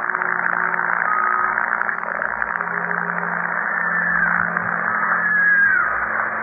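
Steady hiss of a muffled, low-fidelity recording, with faint high wavering cries about four and five seconds in, presented as a girl screaming inside an empty hotel room.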